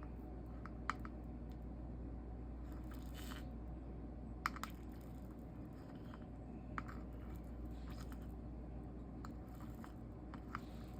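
Scattered light clicks and taps of tools and glass being handled at a stained-glass soldering bench, five or so sharp ones including a quick pair about halfway, with a brief scratchy rustle about three seconds in, over a steady low hum.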